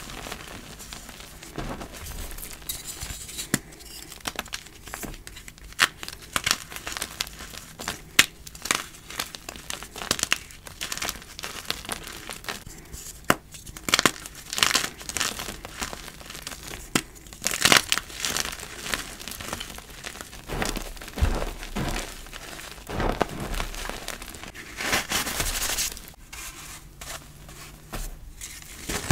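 Blocks of reformed gym chalk crushed, crumbled and snapped apart by hand: a dense, uneven run of crunching and crackling, with several sharper snaps as pieces break off.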